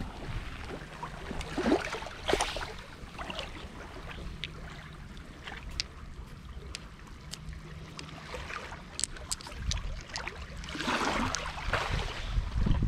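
Wind rumbling on the microphone over a shoreline, with waves washing in about two seconds in and again louder near the end, and many small sharp clicks scattered throughout.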